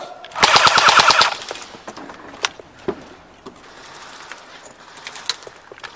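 Airsoft electric gun firing a rapid full-auto burst lasting about a second, followed by scattered single shots and a fainter burst further off.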